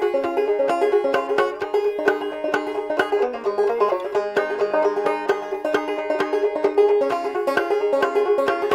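Fast bluegrass banjo picking: a rapid run of plucked notes over a steady beat.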